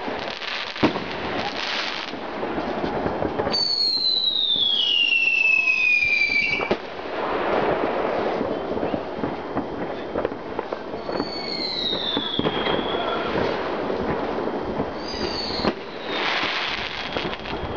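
A dense fireworks display: continuous crackling and popping bangs, with long whistles falling in pitch about four seconds in, around eleven seconds in and again near the end.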